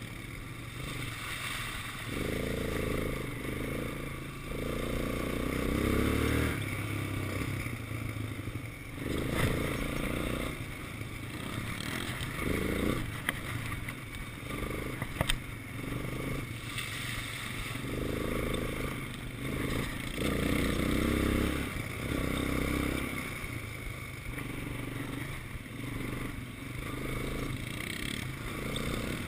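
Quad bike engine revving up and down over and over as the throttle is opened and eased, with brief knocks and rattles from the bike bouncing over a rough dirt track.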